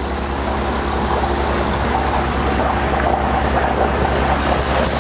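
A small boat's outboard motor running steadily while under way, with water washing past the hull.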